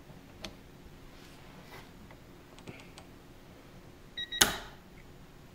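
A short electronic beep from the digital torque adapter, followed at once by a sharp click as the torque wrench is pulled to its set torque through the crow's foot, about four seconds in. A few faint handling clicks come before it.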